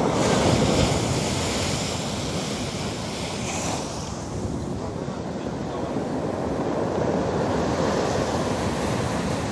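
Storm surf breaking on a stony beach, with the loudest crash about the first second in and a hiss of water washing over the stones a few seconds later. Wind buffets the microphone.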